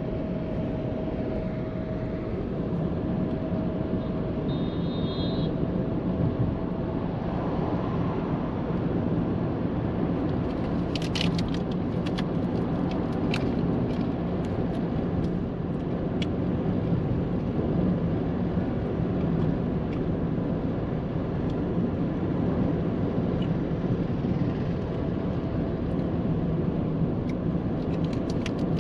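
Steady road and engine noise inside a Maruti Suzuki Ciaz's cabin as it drives along, with a short high beep about five seconds in and a few light clicks a little before the middle.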